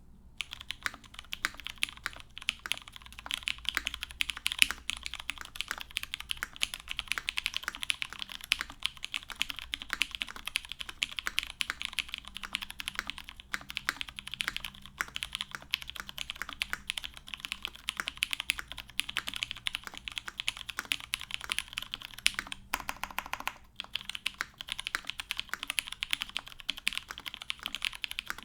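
Continuous fast typing on a mechanical keyboard with lubed Cherry MX Brown tactile switches on a UHMWPE plate and Cherry doubleshot keycaps: a dense stream of key clacks, broken by a short pause about 23 seconds in.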